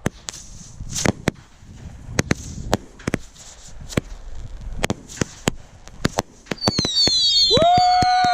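Consumer fireworks going off in a hand-lit show: a string of sharp bangs and crackles, then, near the end, several whistling effects that fall in pitch.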